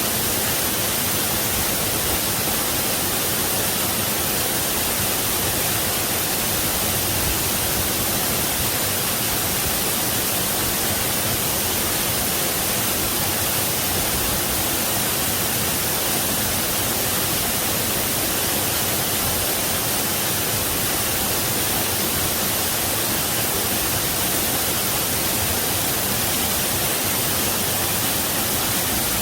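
Waterfall rushing: a steady, unchanging hiss of falling water, strongest in the highest pitches.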